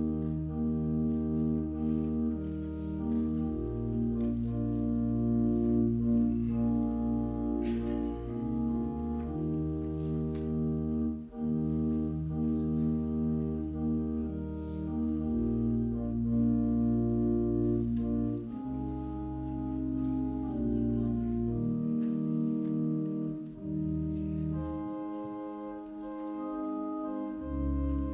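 Slow organ music: sustained chords over a held bass line, moving to a new chord every few seconds.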